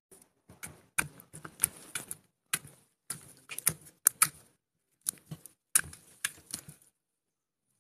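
Green slime being squished and worked by hand, giving an irregular run of sticky clicks and crackling pops that stops about seven seconds in.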